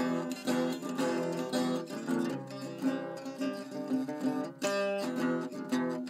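Background music: a plucked acoustic guitar picking notes in a steady, lilting rhythm.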